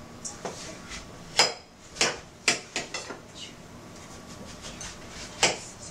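Kitchen clatter during food preparation: a handful of sharp, irregular knocks and clinks of utensils and dishes on a counter, with one more near the end.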